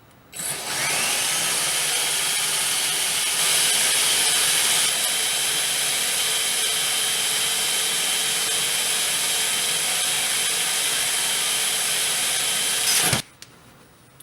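Cordless drill with a 1/4-inch diamond bit grinding through glass under water: it spins up with a rising whine that levels off, runs steadily for about thirteen seconds, then stops suddenly. This is the last stage of the hole, drilled slower with lighter pressure so as not to chip the back of the glass as the bit breaks through.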